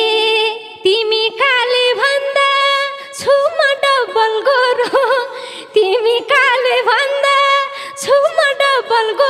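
Live Nepali lok dohori music: a high, ornamented lead melody with swooping slides over the band's steady accompaniment.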